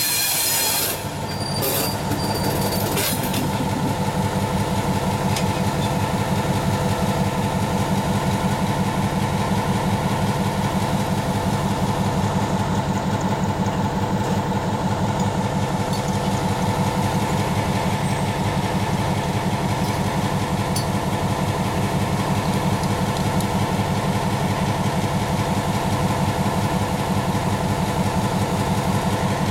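Diesel switcher locomotive's engine running steadily with a fast, even throb as it moves slowly along the track. High-pitched wheel squeal dies away about a second in.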